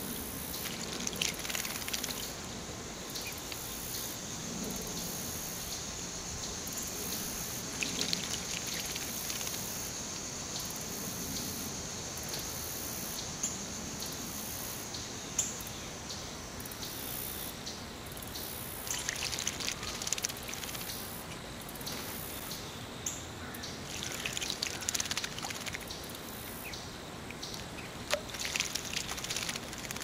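Juvenile eastern bluebird bathing in a shallow bird bath, its wings flicking the water in several short bursts of splashing.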